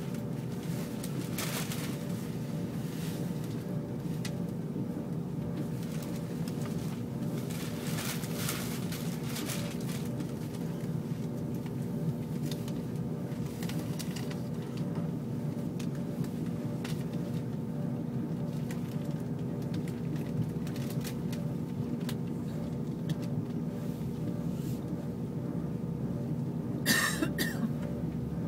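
Interior running noise of an ICE high-speed train at speed: a steady low rumble with a constant hum. A few short hissing flares break through, the sharpest and loudest near the end.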